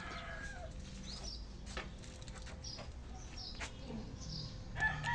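Small birds chirping in short, falling calls, with a rooster starting to crow near the end. A steady low hum runs underneath.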